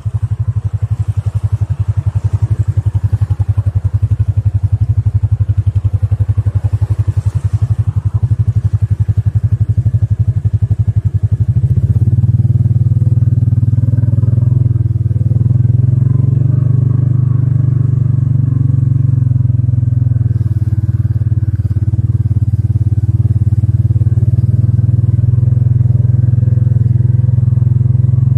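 Hisun Tactic 550 ATV's single-cylinder four-stroke engine running under way. It has a low, throbbing note that gets louder and steadier about twelve seconds in.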